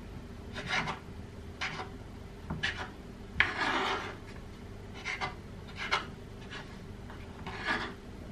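Knife cutting sliced toast bread into cubes on a board: short rasping cuts about once a second, with one longer sawing stroke a few seconds in.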